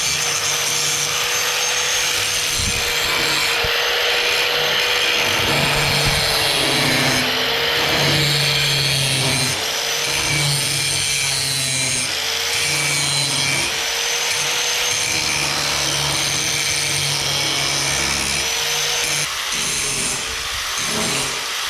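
Handheld power tool cutting through steel: a steady high whine over loud grinding noise, the motor's pitch sagging briefly several times as it bites. Near the end the cut turns choppy and stop-start.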